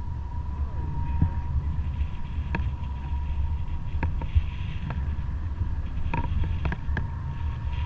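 Airflow buffeting the microphone of a camera flying with a paraglider pilot: a steady low rumble, over which a thin steady high tone runs and a handful of short sharp ticks fall in the second half.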